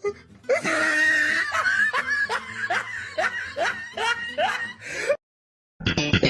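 A person's snickering laugh used as a meme sound effect: a run of short rising "heh" sounds, about two a second, that cuts off sharply. After a brief silence near the end, a plucked bass and electric guitar riff starts.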